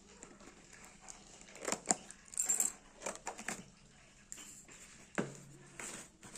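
Earbud packaging being handled and opened: a series of rustles, crinkles and small clicks, with a sharp click about five seconds in.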